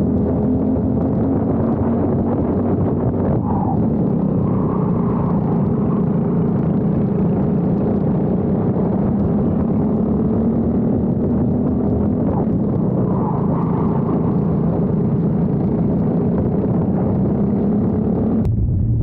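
Briggs & Stratton four-stroke kart engine running steadily at a fairly level pitch. About a second before the end the sound cuts abruptly to a lower engine note.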